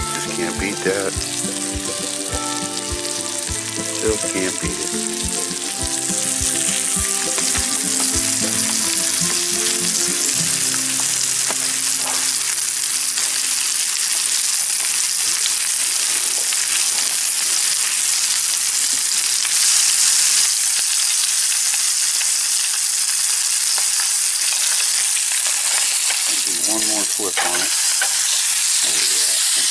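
Whole bluegill frying in butter in a pan on a gas camp stove: a loud, steady sizzle that builds up a few seconds in and holds. A music track plays over the first part and ends about a dozen seconds in.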